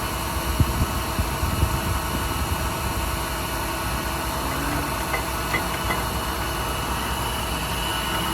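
International DuraStar service truck's diesel engine running steadily, with a few low knocks in the first couple of seconds.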